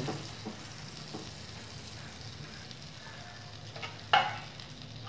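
Butter sizzling steadily in a hot nonstick pan around a bread pizza slice that is frying in it, with a short knock about four seconds in.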